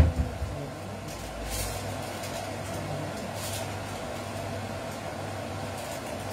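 A kitchen cupboard door shuts with a thump at the start, then the cooker-hood extractor fan hums steadily, with a couple of faint rustles on the counter.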